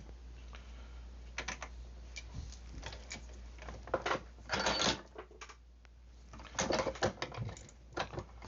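Handling and clamping of a small homemade vise built from metal camera clamps: scattered light clicks and knocks, with two longer scraping, rustling stretches about halfway through and near the end.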